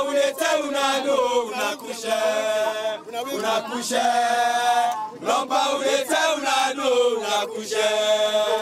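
A group of men chanting a song together in unison, loud, with long held notes, a welcome song of their team.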